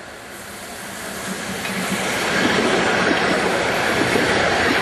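A Tatra streetcar approaching and passing close by, its wheels rumbling and clattering over the rails. It grows steadily louder and is loudest over the second half.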